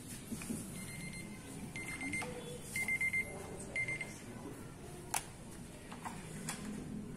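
Short, high-pitched electronic beeps in four brief groups, from about one to four seconds in, over low room noise, followed by a single sharp click about five seconds in.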